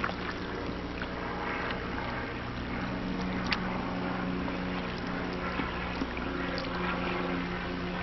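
A steady low hum with several even tones, under a light noisy hiss, with a few sharp clicks, the clearest about three and a half seconds in.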